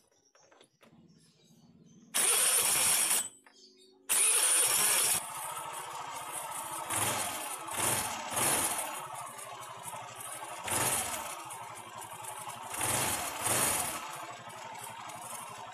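Honda Vario 110 scooter's single-cylinder engine, run with the CVT cover off: a first start attempt cuts off after about a second, the second catches about four seconds in, then it idles with several short throttle blips. The scooter has a reported tek-tek knock that the mechanic suspects comes from a damaged CVT roller housing.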